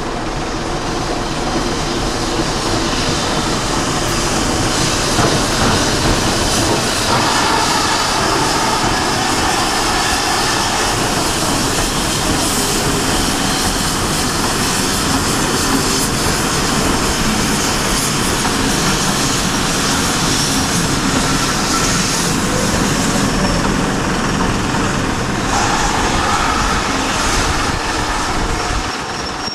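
GWR 4-6-0 steam locomotive hauling a train of coaches past, a steady loud running noise with the clickety-clack of wheels over the rail joints.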